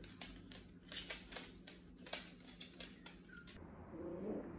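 Dog claws clicking and tapping irregularly on a hardwood floor, about a dozen sharp clicks over three seconds. A soft, short voice-like sound follows near the end.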